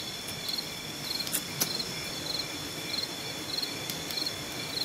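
Night insect chorus: a steady high trill with one insect chirping in short pulses about one and a half times a second. A few faint clicks sound over it.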